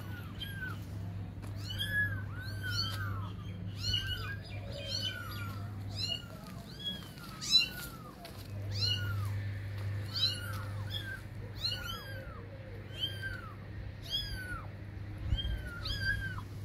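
Kittens meowing over and over: short, high-pitched meows about one or two a second, sometimes overlapping.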